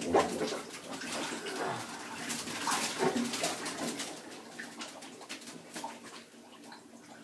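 Water sloshing in a bathtub full of rubber balloons, with balloons bumping, rubbing and giving short squeaks against one another and the tub. It is louder for the first few seconds and fainter toward the end.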